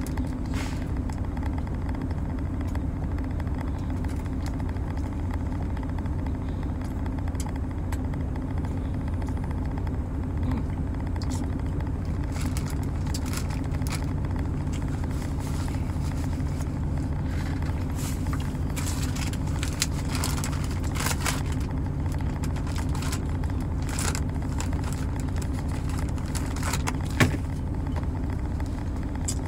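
Steady low hum of a truck idling, heard from inside the cab, with scattered short clicks of eating and handling food from about midway on. There is one sharper knock near the end.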